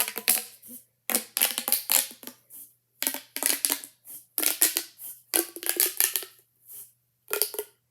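Plastic pop tube fidget toy being stretched and squashed over and over, giving a run of short crackling, ratcheting bursts with brief gaps between them.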